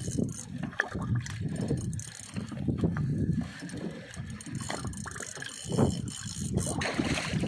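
Water slapping and sloshing against the hull of a small fishing boat, coming in irregular low surges.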